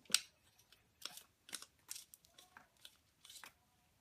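Aluminium LED flashlight being screwed back together after the batteries go in: a string of short, dry clicks and scrapes from the threads and the handling. The first click, just after the start, is the loudest.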